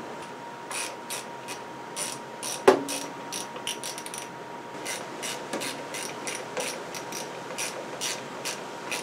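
A hand ratchet clicking in slow, uneven strokes, a few clicks a second, as bolts are tightened on a lawnmower engine. A single louder knock comes about a third of the way through.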